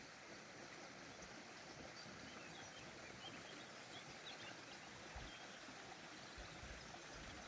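Faint, steady trickle of water from a spring fountain, with small high ticks scattered through it.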